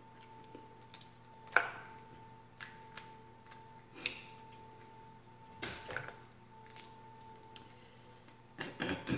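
Boiled crawfish shells cracking and snapping as they are peeled by hand: a series of sharp irregular clicks, the sharpest about one and a half seconds in. Under them runs a faint steady hum from an oven.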